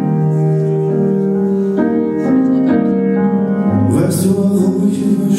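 Song intro played live: a stage keyboard sustains piano chords, with a low bass note and fuller accompaniment coming in about four seconds in.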